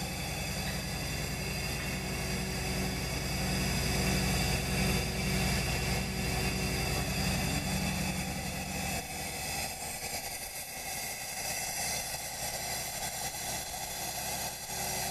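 Beam-model ultrasonic seamer running, its chain-and-sprocket-driven head travelling along the beam while the horn welds two overlapped layers of synthetic carpet backing by frictional heat. It makes a steady machine hum with several high steady tones above it, and the low hum drops away about nine seconds in.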